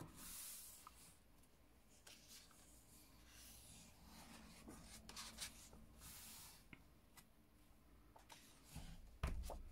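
Faint paper rustling and rubbing as hands turn the pages of a colouring book and smooth them flat, with a few light ticks and a soft knock near the end.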